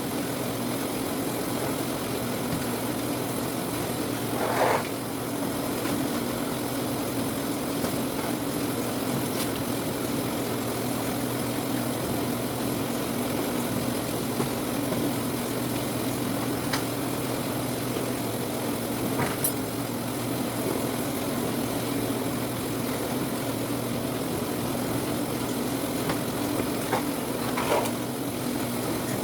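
Citrus-sorting machine running with a steady mechanical hum. A couple of short, louder sounds stand out, one about five seconds in and one near the end.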